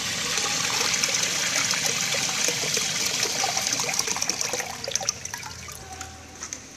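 American Standard Washbrook urinal flushing: water rushes through the bowl, then tapers to a trickle after about five seconds.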